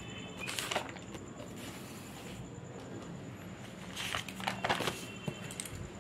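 Paper pages of a notebook being turned by hand: two rustling flurries, the first about half a second in and a longer one around four to five seconds in.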